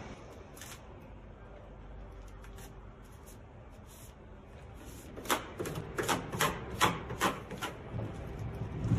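Quick rubbing strokes, about two or three a second, starting about five seconds in: flashing tape being pressed and rolled down onto a wooden window sill with a small hand roller.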